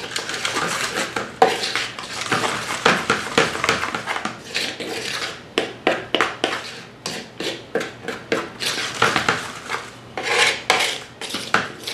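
Wooden paddle scraping and knocking against a wooden bowl as cooked sushi rice is stirred and turned with rice vinegar, a rapid irregular run of scrapes and taps.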